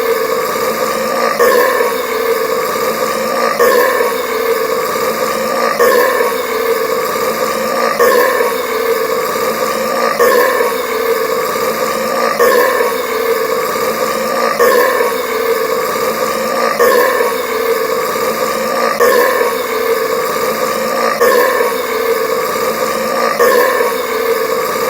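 A man's loud, drawn-out burp from drinking carbonated soda, repeating in the same form about every two seconds as a continuous loop.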